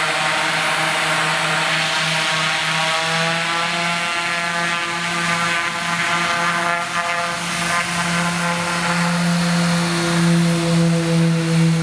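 A Short SC-7 Skyvan's twin Garrett TPE331 turboprop engines running as the aircraft taxis, with a steady low propeller drone and a high turbine whine. It grows louder and pulses near the end as the aircraft rolls close by.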